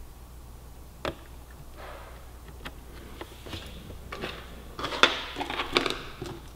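Small clicks and knocks of parts being handled, with a quick run of clattering about five seconds in, as a tray and its hinge pins are fitted back under a motorcycle's seat.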